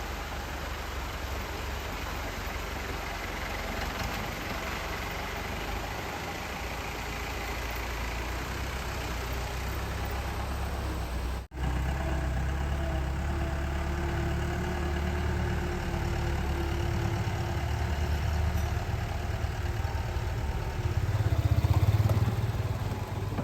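Vehicle engine running steadily at low speed under a rushing noise. It breaks off for a moment about halfway through, and after that the low engine hum is clearer and grows louder near the end.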